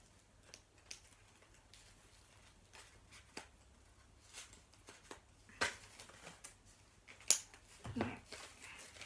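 Scissors snipping open a small wrapped package: a scattering of faint snips and clicks, with louder sharp clicks about five and a half and seven seconds in and a dull thump near the end.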